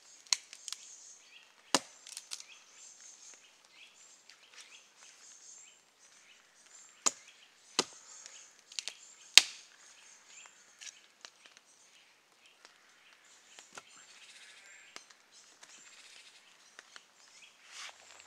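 Hatchet chopping into a damp, partly rotten ash log to split it into kindling. The chops are sharp and irregular, a few in the first couple of seconds and a quicker cluster around seven to nine seconds in.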